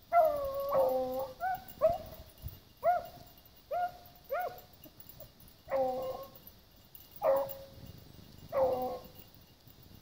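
Pack of beagles baying as they run a rabbit's scent trail: a string of about a dozen short, bending bawls from several hounds, overlapping at first, then coming singly and stopping shortly before the end.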